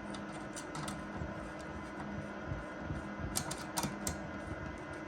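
Small scattered clicks and taps as a CPU cooler's spring-loaded mounting screw is screwed down into a plastic wall anchor through the motherboard, with a few sharper clicks about three and a half to four seconds in, over a faint steady hum.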